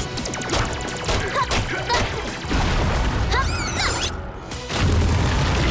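Cartoon sound effects of an overworked machine engine breaking down: a fast clattering rattle at first, then clanks and crashes as it gives out, mixed with music. A low rumble swells in near the end.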